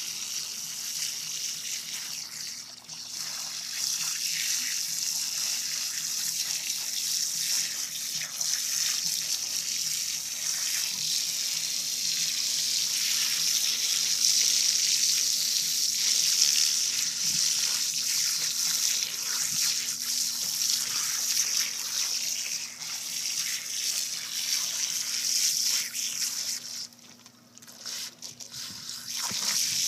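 Water from a garden hose splashing onto the water surface and into a manatee's mouth: a steady rushing hiss that breaks up into uneven spurts near the end.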